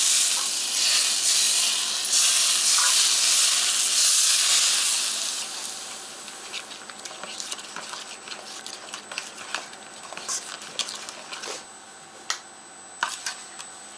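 Very hot vegetable oil poured onto garlic and ground red pepper, sizzling and hissing strongly for the first five seconds or so before it dies down. Then a metal spoon clinks and scrapes in a steel bowl as the chili-garlic sauce is stirred.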